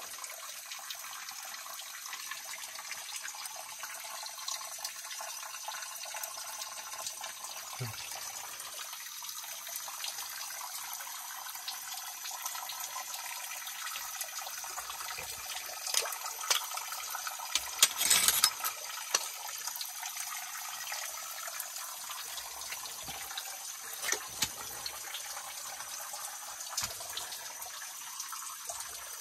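Shallow creek water running and trickling over limestone rock, a steady hiss. A short cluster of knocks and scrapes comes a little past the middle.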